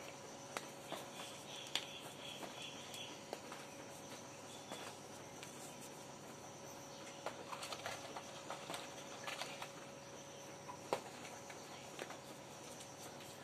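Faint scattered light taps and patter as baking soda is shaken out onto towels in a plastic tub, with more of them about seven to nine seconds in, over a steady faint hum.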